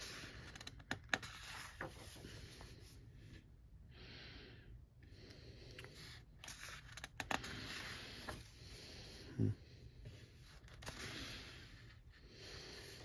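Pages of a paper colouring book being turned by hand: faint swishes and rustles of paper, with a few light clicks and a soft thump as the pages are handled and laid flat.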